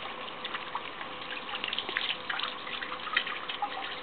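Water running from a garden hose into a plastic tub of water, with a steady hiss and patters of small splashes that come thickest in the middle.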